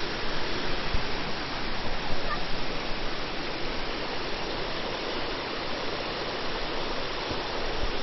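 Waterfall of about 90 feet: a steady, even rush of falling water.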